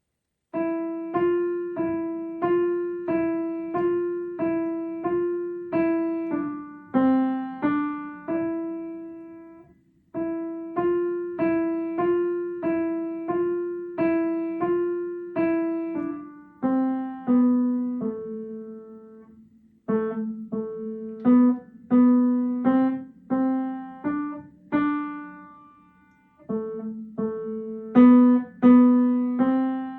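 Piano music: a slow melody of single notes, about two a second, played in phrases with short pauses between them.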